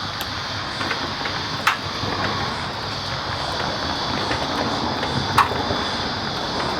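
Two sharp metallic clinks of hand tools on car parts, about a second and a half in and again near the end, over a steady background hiss.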